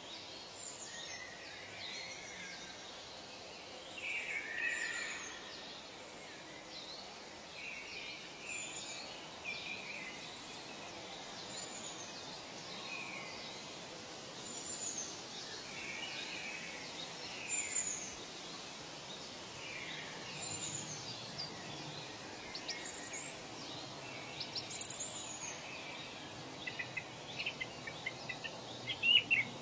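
Nature ambience of many birds calling over a steady hiss of background noise. A short, high falling note repeats about every three seconds, and a burst of loud, sharp chirps comes near the end.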